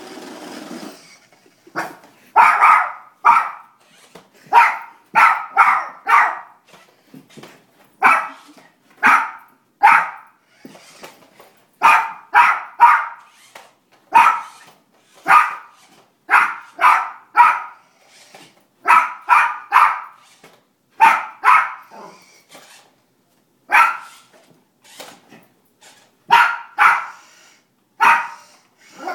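Miniature Pinscher barking excitedly at a light-up toy car: sharp barks, mostly in quick runs of two or three, repeating every second or so with short pauses.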